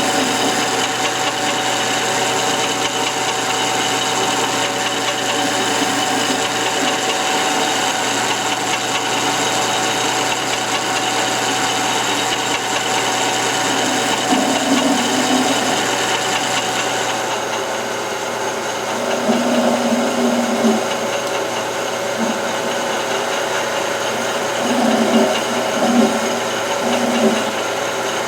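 Metal lathe running steadily with a mechanical whine, taking a cut in mild steel. Louder, rougher patches of cutting noise come and go in the second half.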